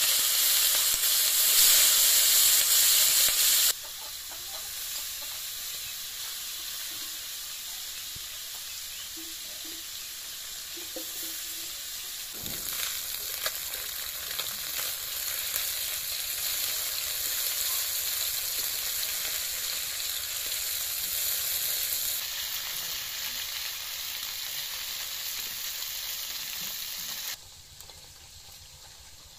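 Small fish sizzling as they fry in hot oil in a kadai. The sizzle is loud for the first few seconds after the fish go in, then settles to a steadier, quieter sizzle as a metal spatula stirs them, and drops lower again near the end.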